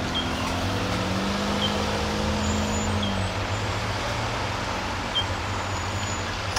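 Road traffic with vehicle engines running and idling, including the drone of a heavy truck engine that drops in pitch and fades about three seconds in.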